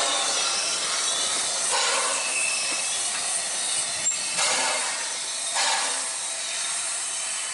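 Narrow-gauge steam tank locomotive (Victorian Railways NA class 2-6-2T) moving off slowly under steam. A steady hiss of steam is broken by a few slow, uneven exhaust chuffs, about a second and more apart.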